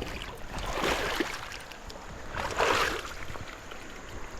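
Water splashing twice, about a second in and again near three seconds, as a hooked smallmouth bass is brought in through shallow creek water.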